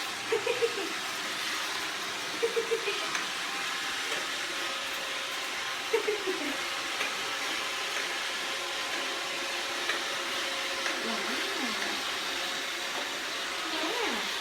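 Roomba robot vacuum running with a steady whir, while short pitched cries come over it: a quick run of three near the start, another three a couple of seconds later, then single falling or wavering cries around halfway, later on and near the end.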